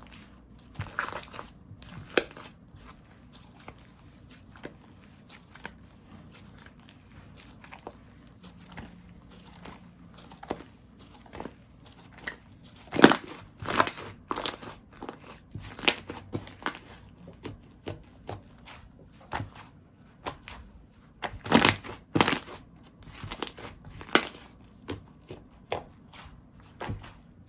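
Hands playing with slime: irregular sticky pops, clicks and crackles, with louder clusters of pops about a second in, around the middle and near the end.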